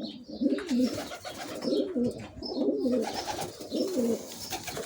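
Domestic pigeons cooing: several short, low coos that rise and fall, following one another without a break.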